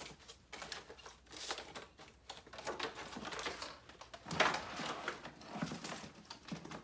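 Handling noises: items shifted and set down in an open storage trunk, giving irregular clicks, knocks and rustling, louder for a moment about four and a half seconds in.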